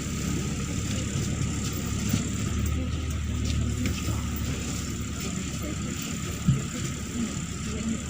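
Neman city bus engine running with a steady low rumble, heard from inside the passenger cabin. A thin steady whine sits over it, and there is a single knock about six and a half seconds in.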